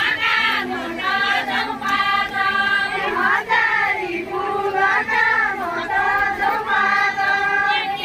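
Women's voices singing a deuda folk song together, drawing out long held notes in a chant-like melody.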